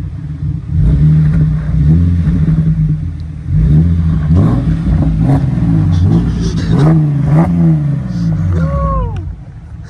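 Holden VE SV6 Commodore's 3.6-litre V6 engine running loud through an exhaust with both mufflers removed. It idles at first, then is revved up and down in a series of blips.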